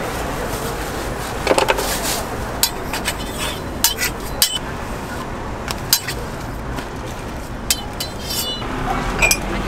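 Metal utensils clinking and tapping in irregular sharp strikes, a few with a brief metallic ring, as a street-stall crepe is prepared.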